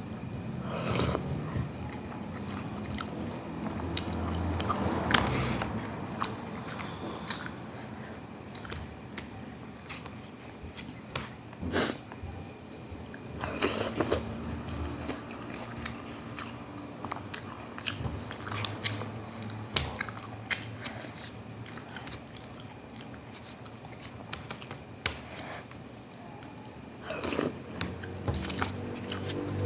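Close-miked eating sounds: a person chewing and biting instant cup noodles with meatballs, egg and cabbage, with scattered wet clicks and crunches.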